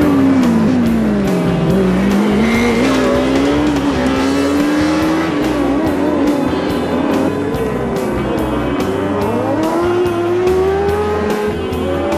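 Formula SAE race car engine revving on an autocross run, its pitch dropping and climbing with throttle and shifts, then rising steadily near the end. Background music with a steady beat plays underneath.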